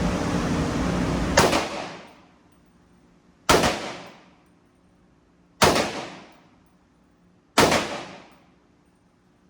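Four single rifle shots from a .300 Blackout rifle, fired slowly about two seconds apart, each with a short echo trailing off. A steady rushing noise runs until the first shot.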